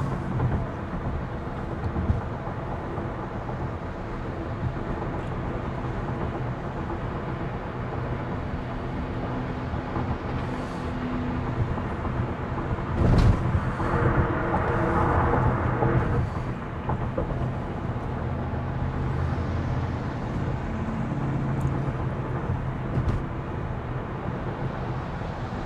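Steady tyre and road noise heard inside an electric Tesla's cabin at about 54 mph on the highway. A single sharp knock comes about halfway through, followed by a few seconds of louder noise.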